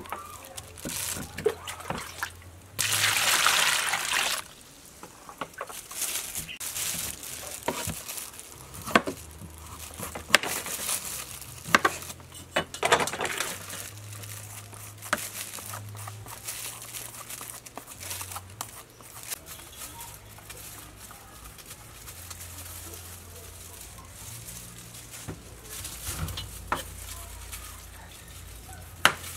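Small knife peeling the rind off a breadfruit: scattered scraping strokes and sharp clicks as the blade cuts the skin and knocks on the board, with a louder hissing burst lasting over a second about three seconds in.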